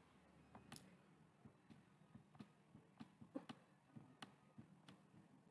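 Near silence with faint, irregular light taps and clicks of a pen or stylus on a writing tablet as a word is handwritten.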